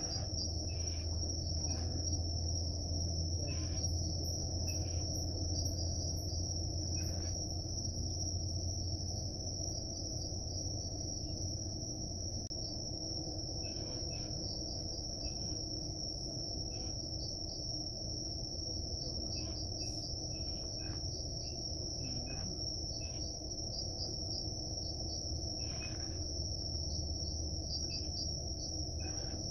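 Steady high-pitched chorus of night insects, with a low rumble underneath that is strongest in the first half and returns near the end, and scattered faint clicks.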